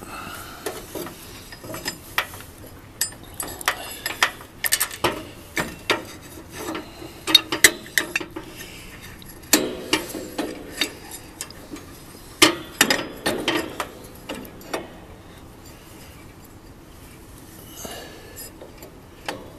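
Irregular metallic clicks and knocks of hand tools and lawn-tractor parts being handled while a greased pulley and the transmission belt are refitted. The knocks come thickly over the first fifteen seconds or so and then die down.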